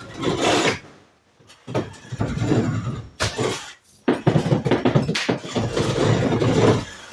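Wall demolition: wall material being torn out and knocked loose, heard as irregular rough scraping and knocking with brief pauses and a longer stretch of scraping in the second half.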